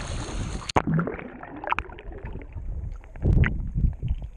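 A swimmer splashing at the surface, then about a second in the camera plunges under water: the sound turns suddenly muffled, with underwater rushing and bubbling, scattered sharp ticks and a louder surge near the end.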